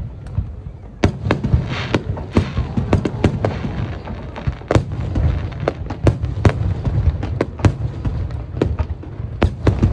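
Fireworks display: many sharp bangs and crackles in quick succession, several a second, over a continuous low rumble of bursting shells.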